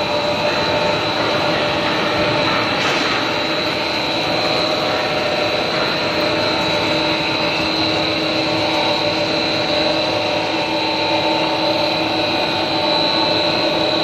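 Three-screw stretch film extrusion line running: a loud, steady machine drone with constant humming tones and a thin high-pitched whine over it.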